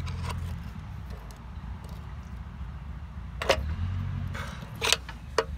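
Sharp metal clicks and knocks of a screwdriver working the shift rails of a Belarus tractor's gearbox into neutral: one about halfway through and two near the end. A steady low hum runs underneath.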